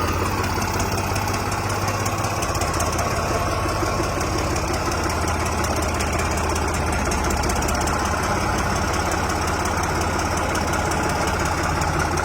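Tractor diesel engine running steadily at a low, even speed.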